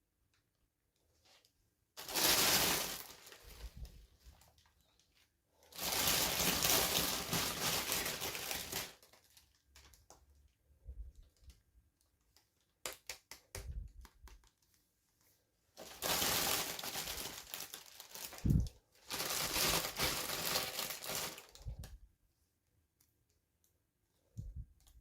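Packaging crinkling and tearing in four bursts of one to three seconds, with small clicks and taps between them.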